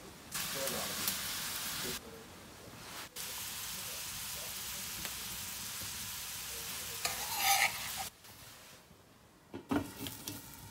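Diced red peppers and onion sizzling in a steel frying pan, the sizzle cutting out briefly twice. Near the end there is a short clink as a glass lid is set on the pan.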